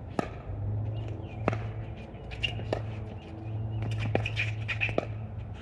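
Pickleball paddles hitting a plastic ball during a rally: five sharp pops a second or so apart, with birds chirping faintly behind.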